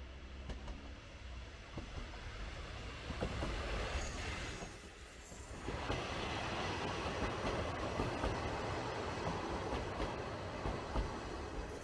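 JR Shikoku Dosan Line diesel railcar running past on the rails, a rumbling noise with scattered clicks from the wheels. It grows louder and fuller about six seconds in.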